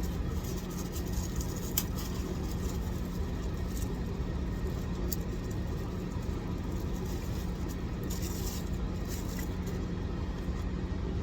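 Steady low rumble and hum of a car idling, with a few faint clicks, likely from a fork against a takeout container.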